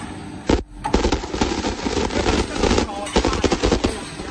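CNC split clamp making machine running as it bends punched flat steel bar into a clamp: a sharp knock about half a second in, then a dense, rapid clatter of metal.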